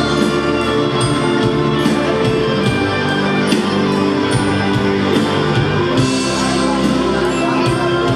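A rock band and a large wind band of brass and woodwinds playing together live: sustained held chords over a steady drum beat, with a cymbal crash about six seconds in.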